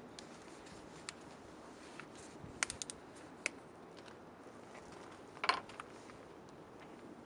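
A few light clicks and knocks from handling the oil bottle and funnel while oil is added to the generator's crankcase, the sharpest about five and a half seconds in, over a faint steady background.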